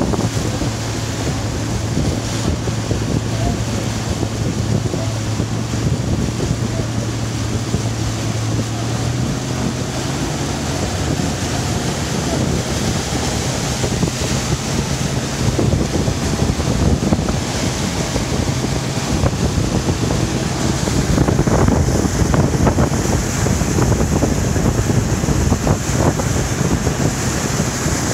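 Wind buffeting the microphone over the steady hum of a motor launch's engine and water rushing past the hull. The engine note steps up slightly about nine seconds in.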